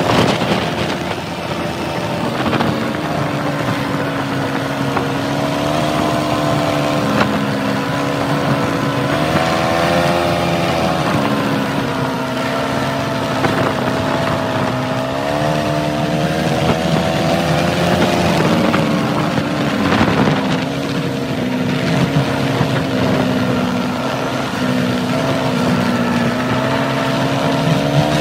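Kymco MXU 300 quad's single-cylinder four-stroke engine running while driving, its drone rising and falling in pitch with the throttle, with wind rushing over the microphone.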